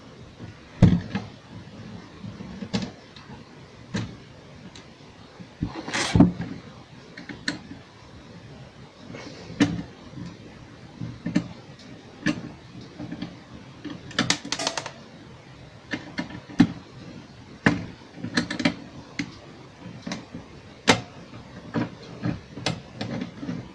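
Irregular clicks, knocks and scrapes from hands handling a UPS circuit board and small tools on a workbench while the board is being freed from the unit. There are a few louder knocks, and a longer scraping stretch about halfway through.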